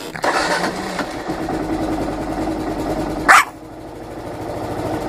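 Kawasaki KLR650's single-cylinder engine running at idle with a steady low thumping. A single short, sharp yap from a Pomeranian rises above it a little over three seconds in.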